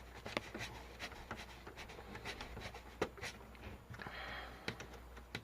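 Small clicks, taps and rubbing from a VGA cable plug being fitted into the port of a computer's video card, with a sharper click about three seconds in and a short scrape about a second later.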